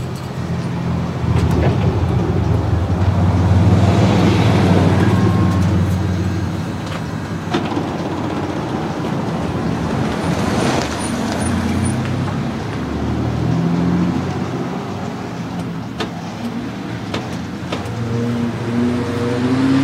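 A 1989 Chevrolet K5 Blazer's engine running while the electric motor of its power tailgate window winds the rear glass up. The running is steady, swelling over the first few seconds, and its pitch shifts in steps later on.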